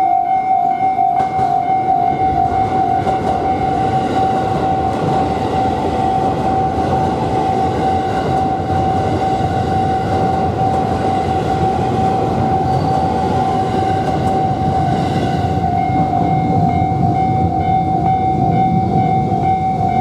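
Japanese level crossing warning bell ringing in a rapid repeating pattern as a Haruka limited express train passes over the crossing. The train's wheels rumble on the rails from about two seconds in.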